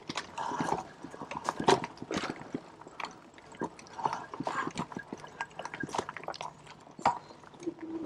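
Full-suspension electric mountain bike rolling over a rough dirt trail: the tyres and frame give irregular knocks and rattles as it goes over bumps.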